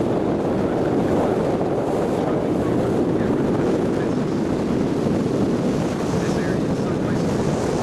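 Wind buffeting the microphone over the steady noise of a cruise boat under way, with water rushing past the hull.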